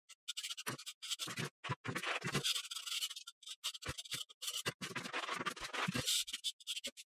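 Putty knife scraping old wallpaper off a wall: a rapid, uneven run of short scrapes with brief pauses between them.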